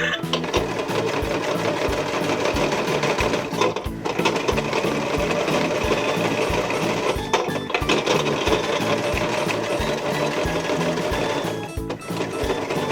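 Just Like Home toy washing machine running a wash cycle: a steady mechanical whirring and churning, with brief breaks about four and seven and a half seconds in and again near the end. Background music with a steady beat plays under it.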